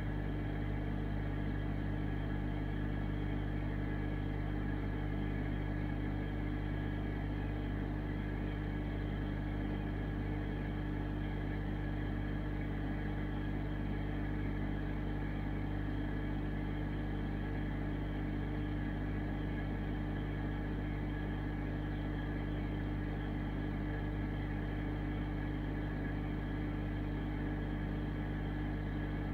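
Aquarium pump running with a steady electric hum, over a constant hiss of bubbling water.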